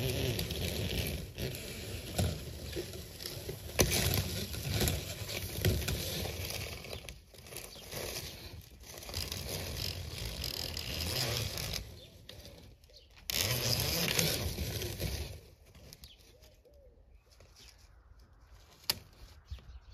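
Irregular scraping and rattling, loud through about the first fifteen seconds, then dropping away to a few faint clicks.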